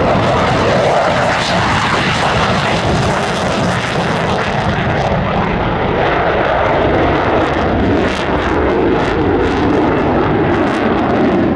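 Jet engines of a USAF F-15C Eagle, loud and steady, with faint crackling in the second half.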